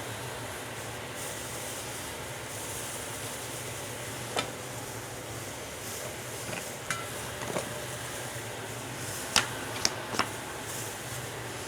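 Body filler being worked with a metal spreader: faint stirring and scraping over a steady shop hiss, with about six sharp clicks as the spreader taps and knocks, three of them close together near the end.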